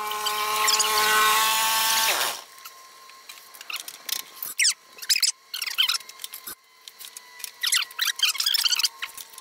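A power drill spinning a socket to run the bolt off a push mower's blade: a steady whir that winds down a little over two seconds in. Then come scattered small clicks and high squeaks as the blade and its adapter come off the spindle.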